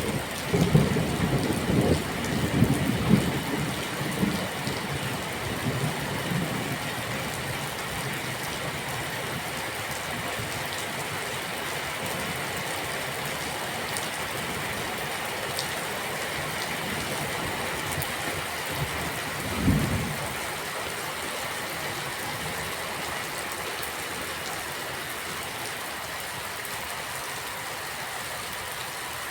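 Steady rain hissing, with rolling thunder rumbling through the first few seconds and dying away. A single short low rumble comes about two-thirds of the way through.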